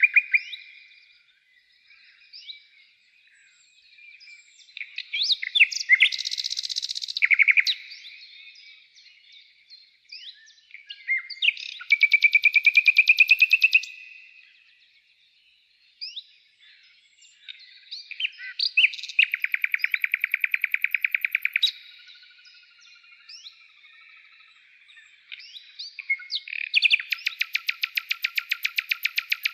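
Songbirds singing: varied chirps and whistles, broken by three long, very fast trills of two to three seconds each.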